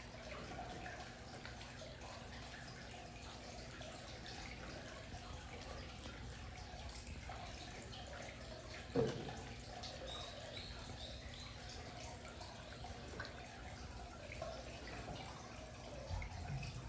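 Amur tiger eating meat: faint wet clicks and smacks of chewing over a steady background hum, with one sharp knock about nine seconds in.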